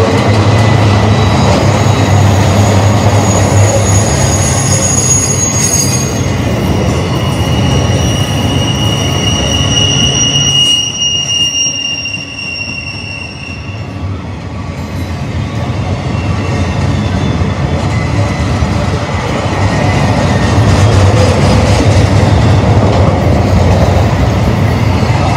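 Intermodal freight train of trailers and double-stack containers rolling past: a steady rumble and clatter of wheels on rail, with several high, steady wheel squeals from about two seconds in until about halfway. The sound dips briefly around the middle, then swells again.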